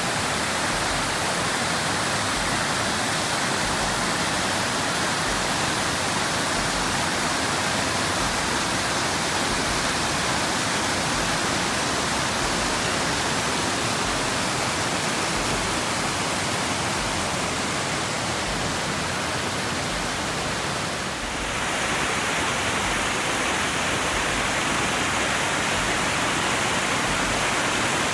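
Creek cascading over rocks in white-water rapids, a steady rushing of water.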